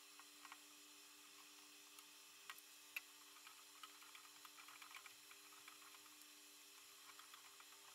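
Near silence with faint scattered ticks and clicks, one sharper click about three seconds in, as a hand tap is turned to cut an internal thread in a brass holder; a faint steady hum lies underneath.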